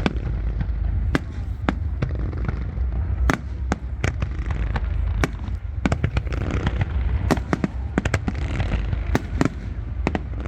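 A fireworks display: shells bursting in quick, irregular succession as sharp bangs over a continuous low rumble, with a spell of crackling about six to nine seconds in.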